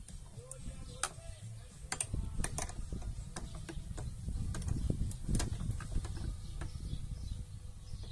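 Irregular clicks, taps and light knocks of plastic and metal sprayer parts being handled and fitted together while reassembling a manual backpack sprayer's pump.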